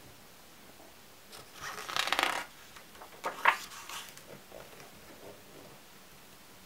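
A photo-album page turned by hand: a papery swish about two seconds in, then a crisp snap as the page falls over, followed by a few soft rustles as it settles.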